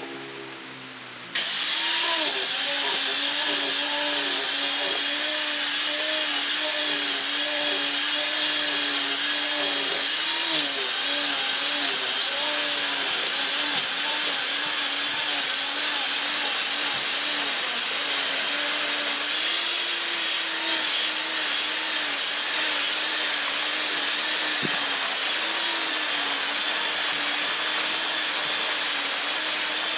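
Electric sander switched on about a second in and running steadily on ipil wood, its motor hum and high whine wavering slightly as it is worked.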